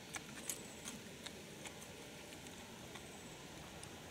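A few faint, scattered clicks and crackles of corn chips being handled in a foil tray, over a quiet outdoor background hiss.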